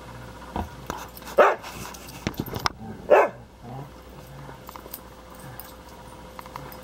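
Dogs play-fighting, with two loud short barks about a second and a half apart and small clicks in between.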